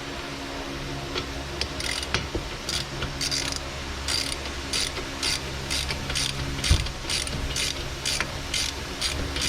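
Hand ratchet clicking in a steady rhythm, about two to three clicks a second, as the hub assembly's mounting bolts are run in. There is a single louder knock about seven seconds in.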